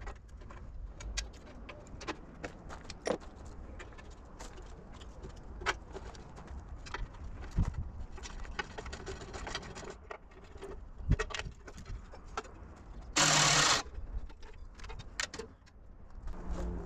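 Scattered metallic clinks and knocks of hand tools and metal parts being handled, with one loud burst of hiss lasting about half a second roughly thirteen seconds in.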